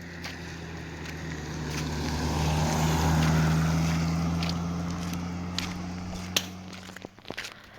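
A low engine-like hum that swells with a rush of noise to its loudest about three seconds in, then fades away, with scattered sharp clicks over it.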